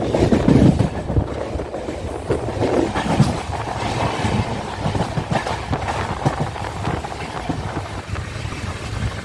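Moving passenger train heard from an open coach door: a steady rumble from the wheels on the track with irregular clatter over rail joints and points, loudest about the first second.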